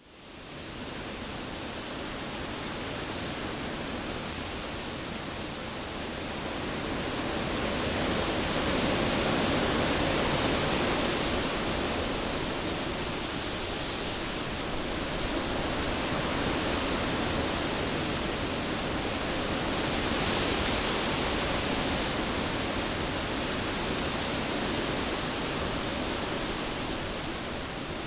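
Cyclone-force wind blowing as a continuous rushing roar, swelling in gusts about eight seconds in and again about twenty seconds in.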